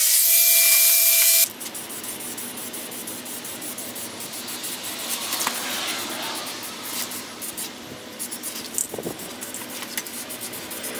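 Angle grinder running with a steady whine and hiss as it grinds down weld seams on a steel bumper, cutting off abruptly about a second and a half in. After that comes the quieter, uneven hiss of an aerosol spray-paint can spraying the bumper.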